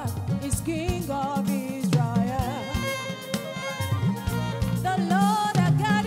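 Live gospel praise band playing a worship song: women's voices singing the melody with vibrato over drum kit, keyboards and bass guitar.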